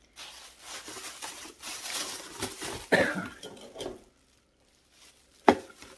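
Plastic shopping bags rustling and crinkling as they are handled, stopping about four seconds in. One short, sharp sound comes near the end and is the loudest thing heard.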